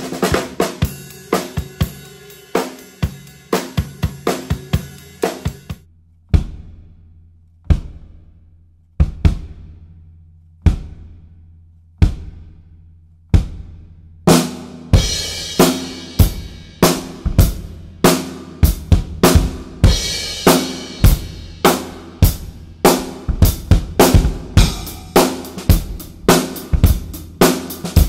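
Drum kit with an 18-inch bass drum fitted with an Evans EMAD2 head damped by the smaller muffling foam ring. It opens with busy drumming, then about six single strokes roughly a second and a half apart, each ringing out briefly, then from about halfway through a full groove on kick, snare, hi-hat and cymbals.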